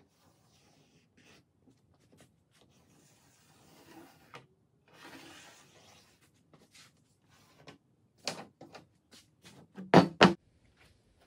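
Soft rubbing and handling sounds as a thin wooden batten is pressed along a plywood panel. Near the end, two heavy knocks close together as a brick is set down on the plywood.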